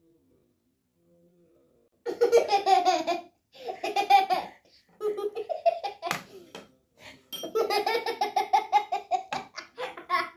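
A woman and a young girl laughing together in repeated bursts, starting about two seconds in.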